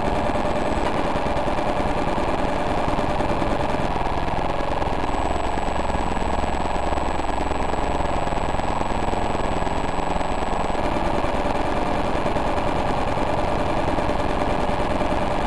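Infrared signals from several TV remote controls, turned into sound by a light-to-sound converter and layered together: a dense, steady, rapid pulsing buzz. A thin high tone sounds over it for several seconds midway.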